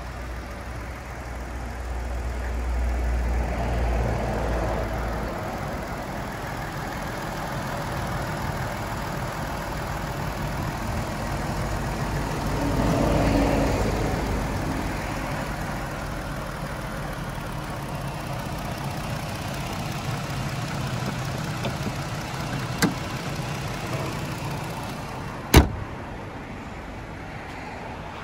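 Chrysler Pacifica's 3.6-litre Pentastar V6 idling steadily, swelling in the middle. A small knock comes near the end, then a loud sharp slam as the hood is shut.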